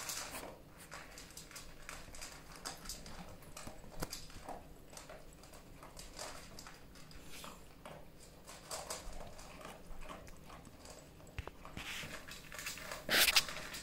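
Irregular light tapping and clicking of animal footsteps, claws on the floor as the animals move about. There is a louder short sound near the end.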